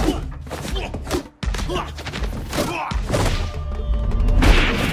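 Film fight-scene soundtrack: a rapid run of punches, blocks and body thuds from hand-to-hand combat, with short grunts and a music score underneath. The sound cuts out for an instant about a second and a half in.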